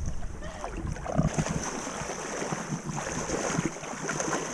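Shallow seawater sloshing and splashing around people and a pig wading and running through it, with wind rumbling on the microphone in the first second or so.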